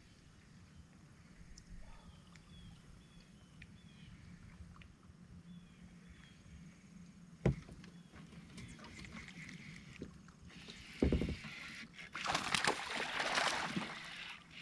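Small knocks and water sounds around a plastic fishing kayak, with a sharp knock about halfway and a heavy thump near the end, followed by a hooked bass splashing at the surface for about two seconds.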